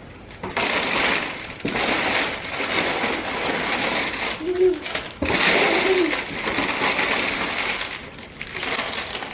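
Plastic snack wrappers crinkling and rustling as wrapped snacks are handled and packed into a container, in several loud bursts. Two short pitched sounds, like a small child's voice, come about halfway through.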